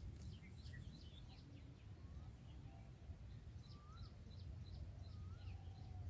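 Faint chirping of small birds: a rapid run of short high peeps, with a few lower slurred whistles in the second half. A steady low rumble sits underneath.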